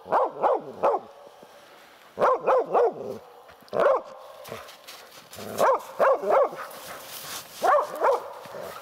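Hunting laika barking up at a marten treed in a birch, in quick bursts of three or four barks with short pauses between.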